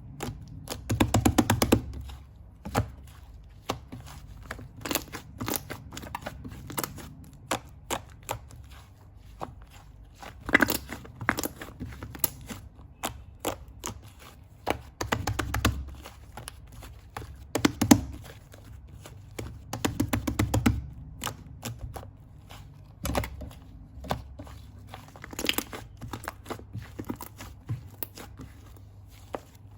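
Fluffy clay slime being squeezed and pressed by hand: a steady run of small sticky pops and crackles, with louder squishing clusters every few seconds.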